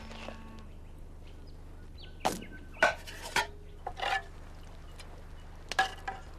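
Metal cooking utensils clinking against a metal cooking pot over a campfire: a scattered series of sharp clinks, some with a short ring, bunched in the middle and again near the end.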